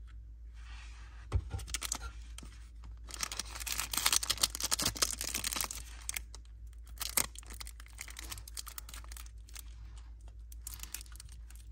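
Packaging rustling and crinkling as it is handled. There is a sharp knock about a second in, a louder stretch of scratchy rustling in the middle, and scattered small clicks and taps near the end.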